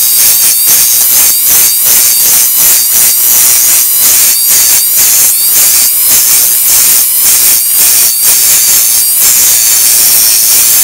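Dremel rotary tool with a 120-grit sanding disc grinding down the hardened filler along the glued crack of a glazed ceramic plate. A loud, steady high whine with a rhythmic scratching pulse about two to three times a second.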